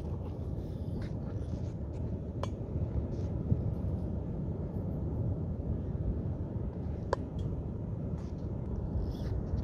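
Steady low rumble of wind and surf, with two short clinks, about two and a half seconds in and again about seven seconds in.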